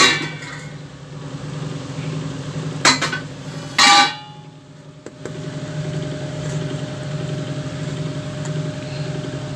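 Kitchen utensils clinking: a sharp metallic clink at the start, another about three seconds in and the loudest around four seconds in. A steady low motor-like hum runs underneath throughout.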